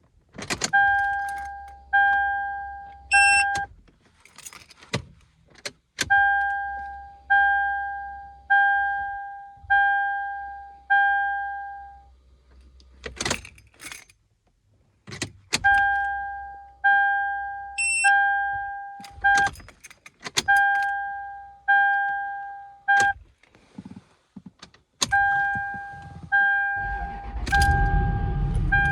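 2003 Toyota 4Runner's warning chime dinging about once a second in runs, broken by sharp single clicks. Near the end the 2UZ-FE V8 engine starts and runs under the chime. The clicks and the late start are the delayed-start and one-click no-start fault, which points to a failing starter.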